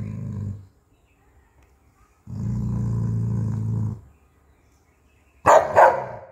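A large black-and-tan dog growling low, guarding his bone: one growl trailing off at the start, a longer growl of about a second and a half, then two sharp barks in quick succession near the end.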